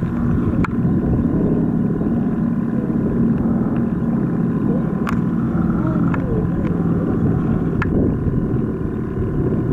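Twin radial engines of a Douglas C-47 droning steadily overhead, with voices in the background and a few sharp clicks.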